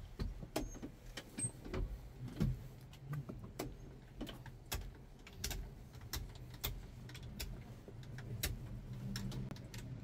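Clicks and knocks of a Kubota tractor's cab controls being worked by hand, the joystick and levers beside the seat, many separate clicks in a row. Under them runs a low steady hum that grows louder in the last couple of seconds.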